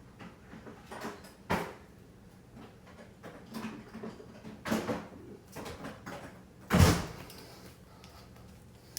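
Pliers and skateboard-truck mounting hardware being handled: a string of irregular short clicks and scrapes, with one heavier knock just before seven seconds.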